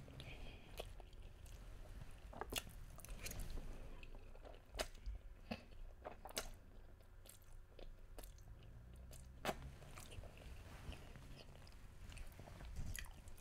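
Faint close-up chewing and mouth sounds of a person eating creamy Cajun chicken fettuccine, with a few sharp clicks scattered through.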